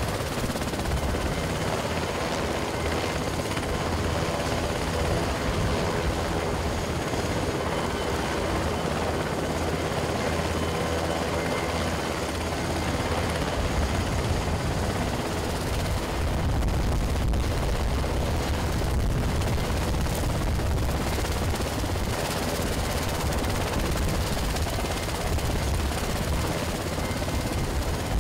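Helicopter rotor blades turning with steady turbine engine noise. The low rotor beat grows stronger about halfway through.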